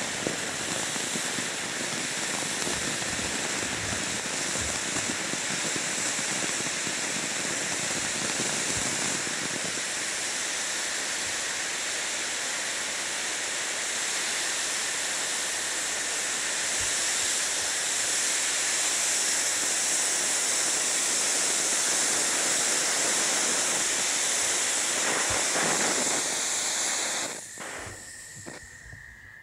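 World Class Tropical Fantasy firework fountain burning: a steady, loud hiss of spraying sparks with a few scattered crackles. The hiss cuts off abruptly near the end as the fountain burns out.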